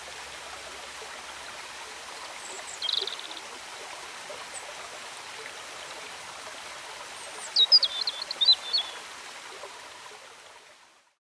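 Shallow river rushing over rocks, a steady rush of water. A bird gives a short chirp about three seconds in and a louder run of chirps near eight seconds, then the sound fades out.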